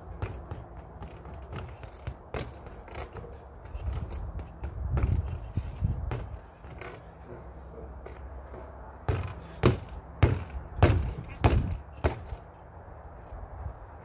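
Gloved punches landing on a freestanding reflex punching bag: irregular lighter hits, then a run of six hard, evenly spaced hits about every half second in the last third.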